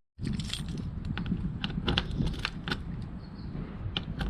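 Scattered light clicks and rattles of a door lock and latch being worked, over a steady low rumble.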